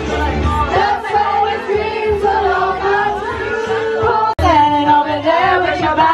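Several women singing together into karaoke microphones over a pop backing track, the voices amplified through the room's speakers. The sound drops out for an instant a little past four seconds in, then the singing carries on.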